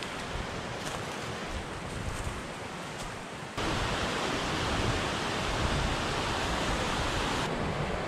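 Creek water rushing over rocks in a small cascade, a steady noise that jumps abruptly louder about three and a half seconds in. The quieter first part holds a few faint ticks.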